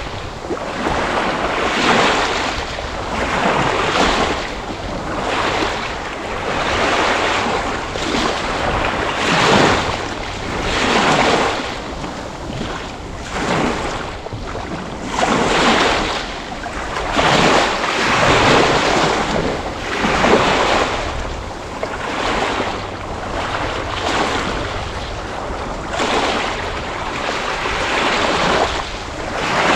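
Sea waves breaking and washing in, one swell every two seconds or so, over a steady low rumble.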